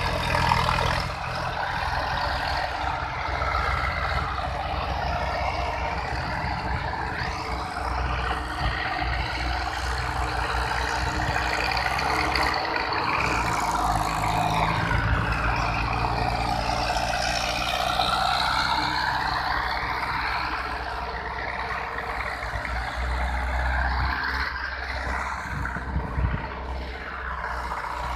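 Tractor diesel engine running steadily close by, a constant low rumble that does not stop.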